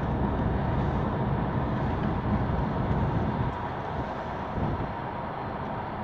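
Road noise of a car driving at speed, heard from inside the cabin: a steady low rumble of tyres and engine, a little louder for the first three seconds or so.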